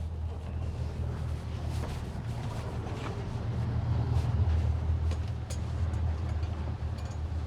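Boat engine running at low speed, a steady low hum that swells a little about four seconds in, with a few faint clicks over it.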